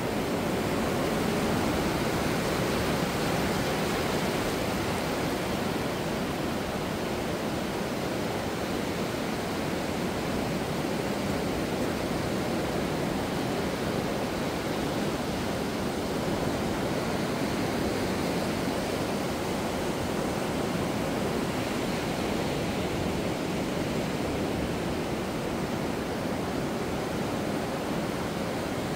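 Ocean surf breaking and washing up a flat sandy beach, a steady wash of noise without distinct separate waves.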